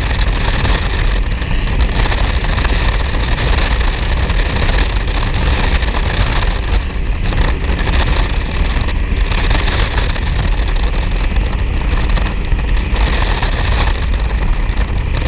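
Offshore performance powerboat running at speed, a steady engine drone under rushing water and wind noise.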